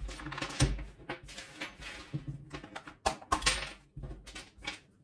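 Irregular clicks and knocks of an electric nailer/stapler's plastic housing being handled and worked loose by hand after its screws are out. There are a few heavier bumps of the tool against the work surface, about half a second in and again past the middle.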